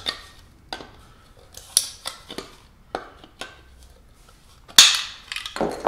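Side cutters snipping through the plastic obstruction inside a pet-dryer blower's air passage: a series of sharp clicks and snaps, the loudest about five seconds in.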